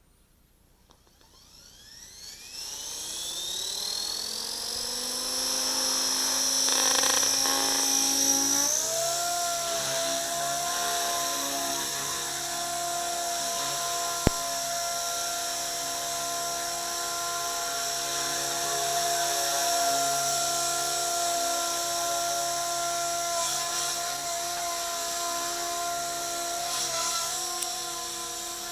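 Blade 180 CFX radio-controlled helicopter's electric motor and rotor spooling up with a rising whine over about eight seconds, then running steadily at a high, drill-like whine. A single sharp click sounds about halfway through.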